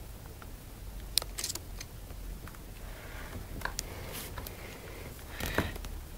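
Handling noise from a phone: scattered clicks and knocks, the sharpest about a second in and a cluster near the end, as kittens nose and paw at it up close.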